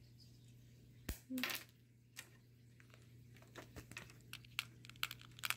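Green-cheeked conure handling white Go stones: one sharp click about a second in, then a run of light clicks and taps near the end.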